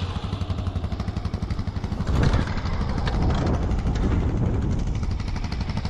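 1988 Honda NX 650 Dominator's single-cylinder engine running under way as a quick, even train of firing pulses. It grows a little louder about two seconds in.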